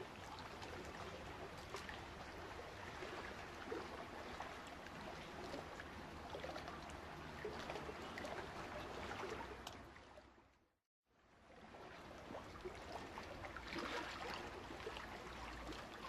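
Faint running water, a steady trickling stream. It fades out to silence about ten seconds in and fades back in a second later.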